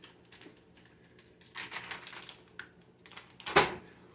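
Scattered light clicks and rustles of hands handling sandwich ingredients and their wrappers, with one sharper knock about three and a half seconds in.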